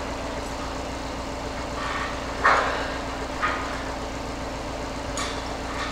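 Heavy vehicle engine running steadily, with a few short, sharp sounds over it, the loudest about two and a half seconds in.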